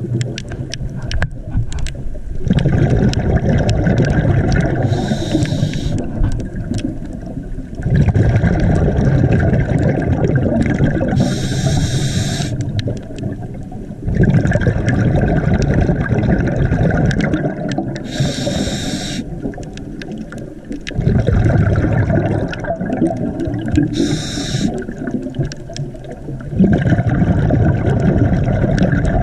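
Scuba diver breathing through a regulator: four breaths about six seconds apart, each a short hiss of inhaling followed by a long rush of exhaled bubbles.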